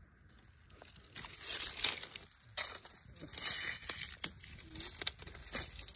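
Dry leaves and kindling catching fire, crackling and flaring in bursts from about a second in, with a few sharp pops.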